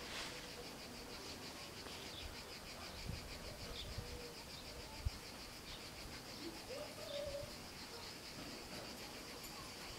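Cicadas buzzing in a steady, high, pulsing drone, with a dove cooing briefly about four seconds in and again around seven seconds.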